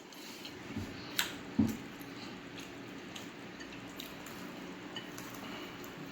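Faint sounds of eating fried chicken at close range: quiet chewing and handling of the food, with a sharp click a little past a second in and a soft thump just after.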